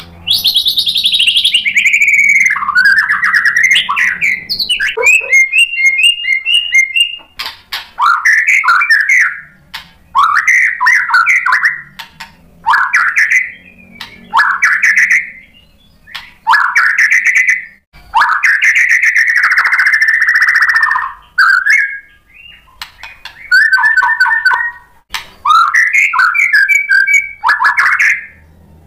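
Male white-rumped shama singing a loud, varied song: whistled phrases of a second or two with short pauses between them, some sweeping up and down in pitch, others fast runs of repeated notes.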